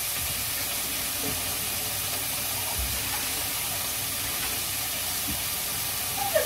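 Meat frying in a pan on the stove, a steady sizzling hiss, with a soft knock about halfway through.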